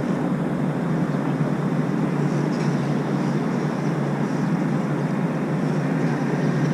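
Steady rumbling noise that does not change, like engine and water noise on a busy river.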